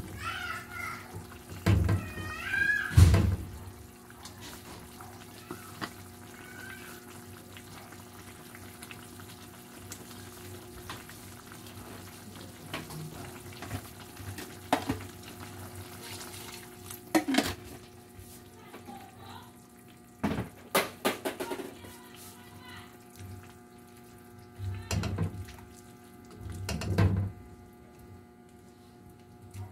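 A ladle stirring soup broth in a pan: liquid sloshing, with scattered sharp knocks against the pan, over a steady hum.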